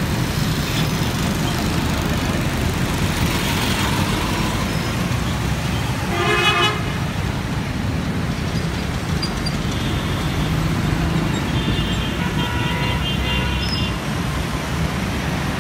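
Busy road traffic running steadily, with a loud vehicle horn blast about six seconds in lasting under a second, and several fainter horn toots later on.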